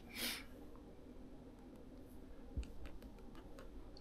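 Quiet background with a brief hiss just after the start, then a few faint, scattered clicks and ticks.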